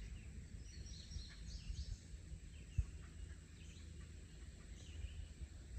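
Faint outdoor ambience: a steady low rumble with a few faint bird chirps, and a single sharp click about three seconds in.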